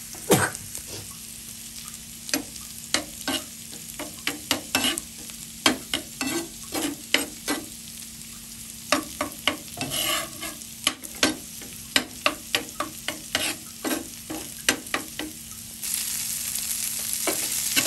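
Spatula scraping and tapping irregularly in a frying pan as prawns and grated coconut masala are stir-fried, over a steady sizzle that grows louder near the end.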